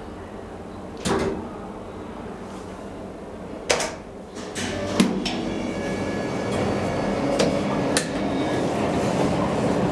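Schindler hydraulic elevator car: a few sharp knocks and clicks as the car's button is pressed. About four and a half seconds in, a steady running noise sets in and slowly grows louder as the elevator starts moving, with more clunks along the way.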